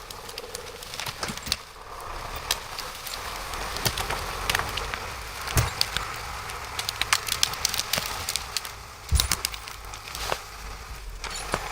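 Wood cracking and splintering: irregular sharp snaps and cracks, some louder than others.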